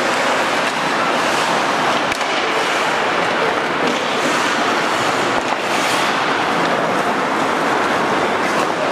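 Ice hockey play on a rink: a steady wash of rink noise with skate blades scraping the ice in short hisses, and a couple of sharp stick-on-puck knocks, one about two seconds in and one past the middle.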